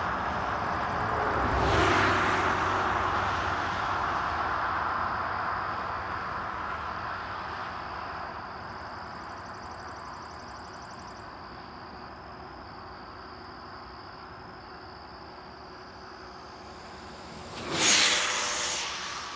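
A full-size car passes on the highway, loudest about two seconds in, then fades away. Near the end a Traxxas Slash 2WD LCG radio-controlled truck on 4S power goes by on its speed run at about 75 mph: a brief, loud whine and whoosh whose pitch drops as it passes.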